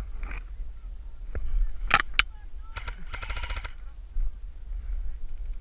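Airsoft electric rifle firing: two sharp cracks about two seconds in, then a short full-auto burst, a fast buzzing rattle, about three seconds in. A low wind rumble on the microphone runs underneath.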